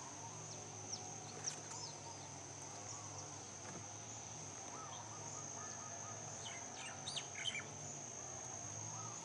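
Faint outdoor ambience: a steady high-pitched insect drone with scattered short bird chirps, a quick cluster of them about seven seconds in, over a faint low hum.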